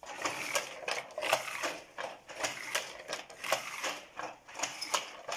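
Wooden loom weaving hammock cloth, clattering as it is worked by hand: a rapid, uneven run of sharp wooden knocks and clacks, several a second.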